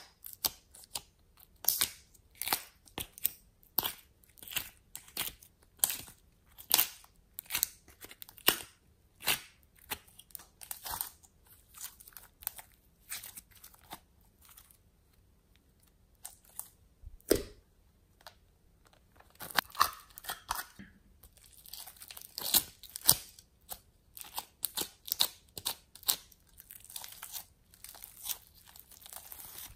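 Glossy slime squeezed and stretched by hand, giving a steady run of sharp clicking pops, about one or two a second. The pops go quiet for a few seconds around the middle, with one dull thump, then turn into denser crackling near the end.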